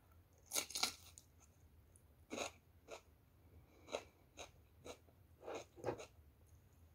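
Close-up chewing of a crisp batter-fried snack, with short, sharp crunches coming at uneven intervals, about nine in all.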